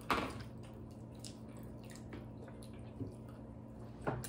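Quiet eating sounds: a sharp click just at the start and a few faint clicks and wet, smacking mouth sounds over a steady low hum.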